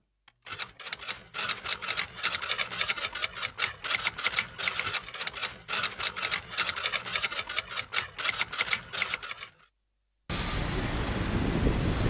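Rapid typewriter key clacks, several a second: the sound effect for on-screen title text being typed out letter by letter. They stop about nine and a half seconds in, and after a brief silence a loud, steady rushing noise starts.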